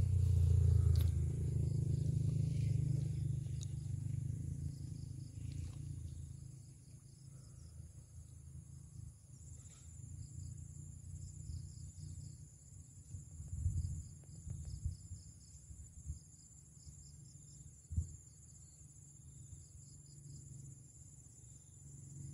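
Insects chirping outdoors: a steady high drone with a pulsing trill beneath it. Under it is a low rumble that is loudest over the first few seconds and then fades, with a few soft thumps later, the sharpest about eighteen seconds in.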